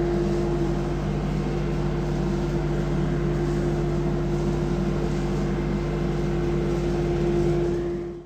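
CNC router spindle running with a steady hum, fading out near the end.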